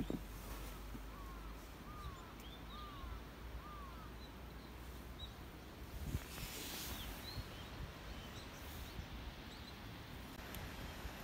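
Faint wild bird calls: four short arched notes in a row in the first few seconds, then scattered thin high chirps, over a steady outdoor background hiss.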